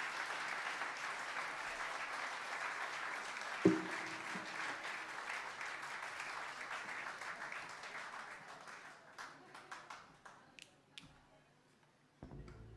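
Concert crowd cheering and applauding, fading to a few scattered claps about ten seconds in. A single loud thump with a brief low ring about four seconds in is the loudest sound, and a steady low hum from the stage comes up near the end.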